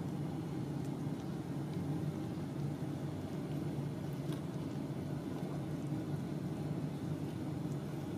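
A steady low hum that holds at one level throughout, with a few faint clicks over it.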